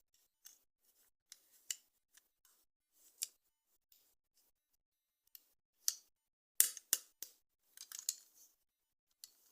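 Toy packaging being opened: a string of short, sharp clicks and crinkles of plastic and card, busiest and loudest about seven to eight seconds in.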